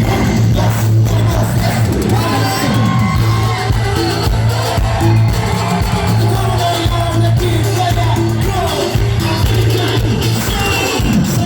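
A cumbia band playing live, with singing over a steady bass line.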